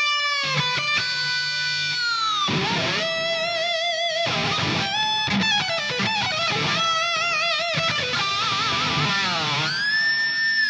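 Distorted electric guitar playing a lead line of long held notes, with pitch bends that slide down and wide vibrato, over a low backing.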